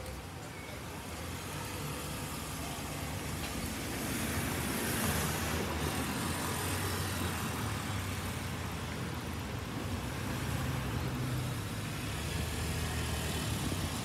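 Road traffic near a level crossing: a steady low engine hum from motor vehicles, with a hiss of passing tyres swelling about four to six seconds in.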